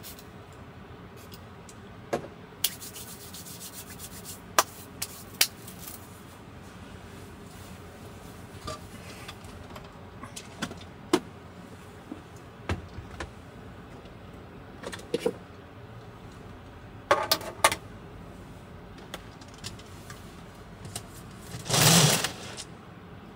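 Small objects being handled: scattered light clicks and knocks over a steady low hiss, a quick cluster of them past the middle, and a louder rubbing, scraping noise lasting about a second near the end.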